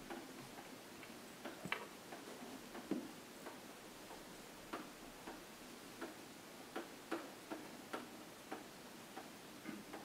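A pen tapping on a whiteboard surface as words are written by hand: faint, irregular clicks, several a second.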